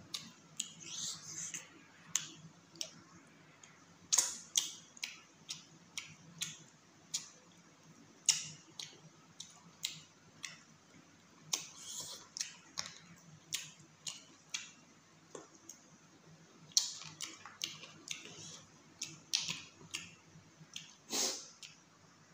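Chewing and mouth smacking of someone eating chicken curry and rice by hand: irregular sharp wet clicks and smacks, sometimes several in quick succession, with a longer smacking slurp near the end.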